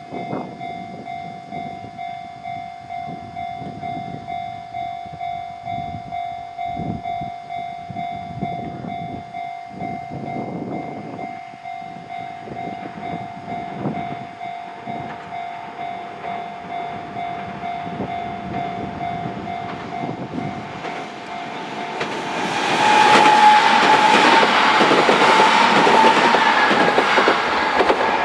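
Japanese level-crossing alarm bell ringing in an even, rhythmic pulse. About 22 seconds in, a Kintetsu Minami-Osaka Line electric train passes over the crossing, much louder, its running noise drowning out the bell.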